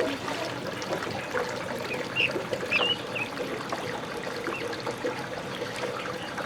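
Water trickling and splashing, with many small drips and splashes, and a few short high chirps about two to three seconds in.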